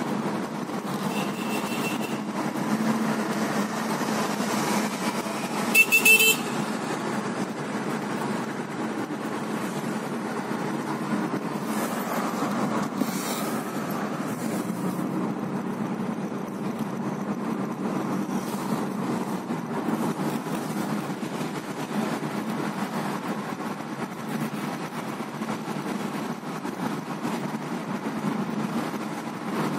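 Steady road and engine noise heard from inside a moving car. A short, loud car-horn honk comes about six seconds in, and a fainter horn toot just over a second in.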